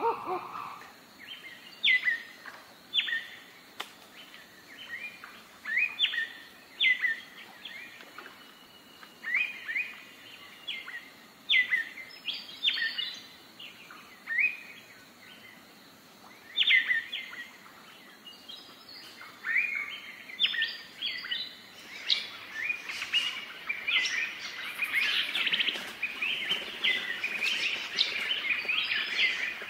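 Wild birds calling: a short call that drops sharply in pitch, repeated about once a second, then thicker, overlapping chirping from several birds in the last third.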